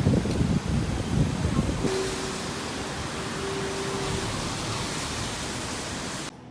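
Wind gusting on the microphone, then, after a sudden change about two seconds in, a steady even hiss of sea surf.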